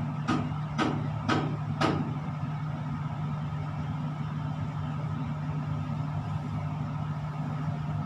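Steady low machinery hum in a tower crane operator's cab, with four short soft noises about half a second apart in the first two seconds.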